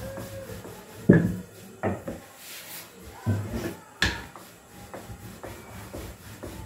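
Pizza dough being pressed and rolled out with a rolling pin on a floured bench: soft rubbing broken by four sharp knocks, the loudest about a second in.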